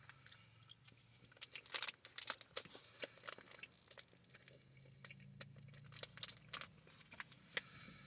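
Faint, irregular soft clicks and crackles of a gummy fruit snack being chewed, in two short spells.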